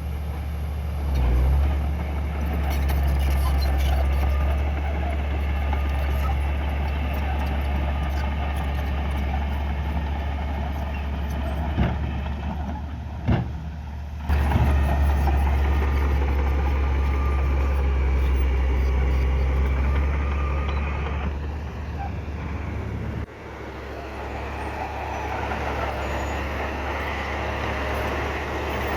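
Heavy diesel earthmoving machinery running under load with a deep, steady rumble whose level rises and falls. Two sharp knocks come about twelve and thirteen seconds in.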